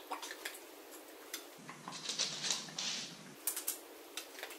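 Dog chewing dry kibble: a run of irregular small crunches and clicks, denser in the middle.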